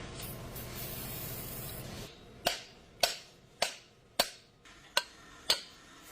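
A steady hiss with a low hum, then, about two seconds in, six sharp clicks or knocks at uneven intervals of roughly half a second to three quarters of a second, each ringing off briefly.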